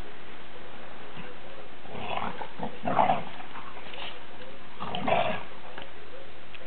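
Dog growling in rough tug-of-war play over a leash, in two short bursts about two and five seconds in.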